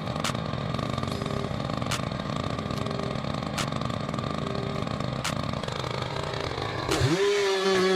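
An engine running steadily, with a few sharp ticks. About seven seconds in, a held pitched tone takes over.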